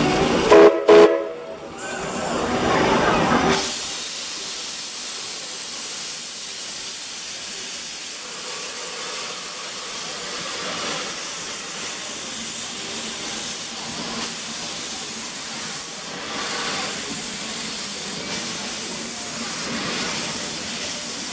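Steam whistle of 1881 Baldwin 2-8-0 locomotive No. 340, a chord of several tones that ends about a second in. A loud blast of steam hiss from the cylinder cocks follows, then a steady hiss of venting steam as the locomotive pulls slowly away.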